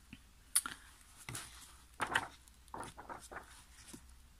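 Pages of a paperback book being leafed through by hand: a string of short, irregular paper flicks and rustles, the sharpest about half a second in and around two seconds in.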